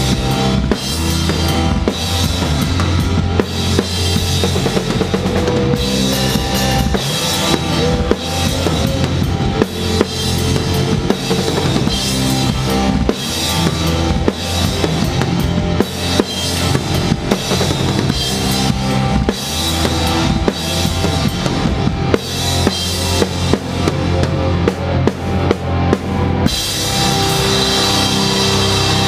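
Live metal band with the drum kit up front: fast, dense kick, snare and cymbal hits over sustained guitar and bass notes. Near the end the drum hits stop and the band holds a ringing chord.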